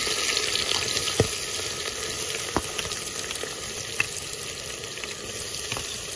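Chicken frying in hot oil in a pan: a steady sizzle with three sharp pops.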